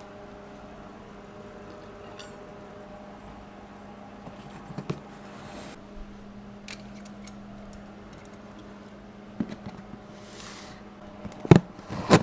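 Cardboard shipping box being opened by hand: scattered clicks, scrapes and rustles of tape and flaps, with a short rustle about ten seconds in and louder knocks near the end, over a steady low hum.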